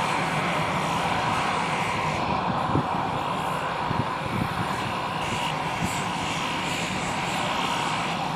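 Boeing 787-8 airliner's jet engines at takeoff thrust as it climbs away after departure: a steady, even noise that holds level throughout.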